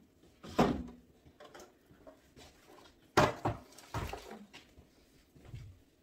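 Condiment bottles and plastic trays knocking and clattering as they are handled in a refrigerator and set down, four or five separate knocks with the loudest about three seconds in.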